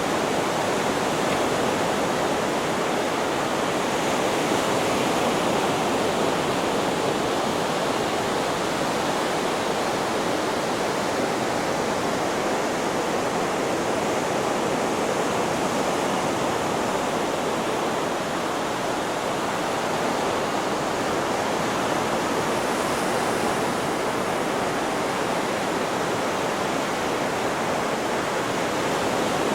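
Steady, even white-noise hiss, unchanging in level.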